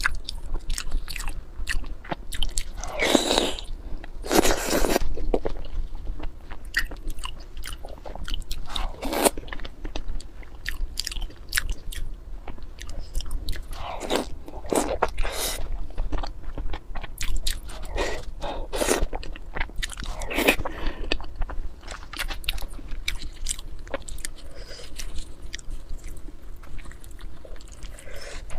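Close-miked ASMR eating: a person biting and chewing food with crunching sounds, in many irregular clicks and short bursts, louder a few seconds in and again in the middle.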